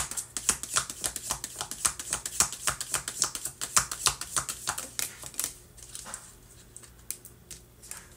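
A deck of round oracle cards shuffled by hand: rapid, crisp clicks and flicks of cardstock for about five seconds, thinning to a few scattered clicks over the last few seconds.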